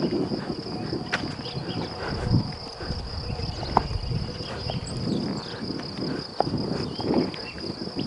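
Insects singing in a steady high-pitched chorus, over a low rumbling noise.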